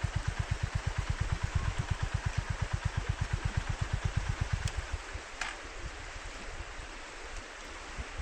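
Honda GB350's air-cooled single-cylinder engine idling with an even low pulse, then cutting off abruptly about halfway through as it is switched off. A quiet outdoor background remains after it.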